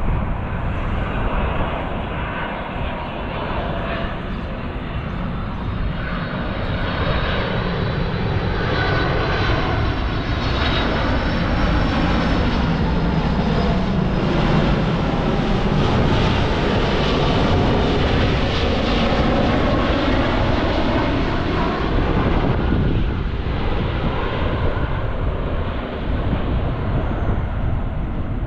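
McDonnell Douglas MD-11F freighter jet passing low overhead on landing approach, gear down. The three-engine jet's rumble builds to its loudest around the middle, with a high engine whine wavering over it, then eases off.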